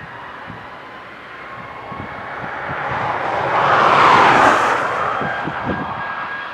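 Jet engines of an Airbus A320-family airliner on the runway, a roar that swells to its loudest about four seconds in and then fades as the aircraft passes.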